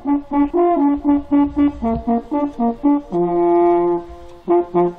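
Two brass hunting horns playing a fanfare: a run of short, quickly repeated notes, a long held note a little after three seconds in, then short notes again.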